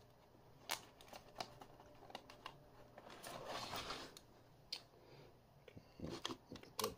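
Plastic VHS cassette shell being handled and opened: scattered light clicks, with a scraping rustle about three seconds in as the top half comes off, and a cluster of clicks near the end as the hand works among the reels.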